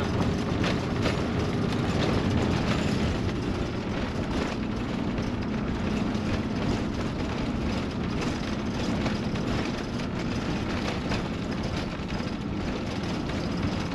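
Motorhome on the move, heard from inside the cab: a steady rumble of engine and road noise with occasional light rattles.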